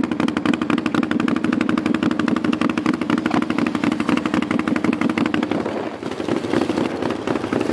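Sport quad (ATV) engine running, with a steady rapid pulse of firing strokes. The sound dips briefly about six seconds in, then comes back.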